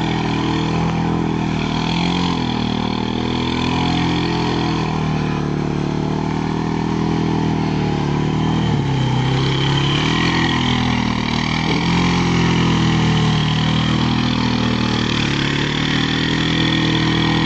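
Suzuki LT-Z ATV engine running under throttle, its pitch rising and falling again and again as the rider revs it on and off through a series of spins.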